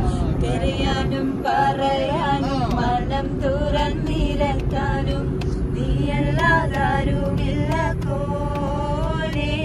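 Several family members, women and men, singing a song together without instruments inside a moving car, over the car's steady low road and engine rumble.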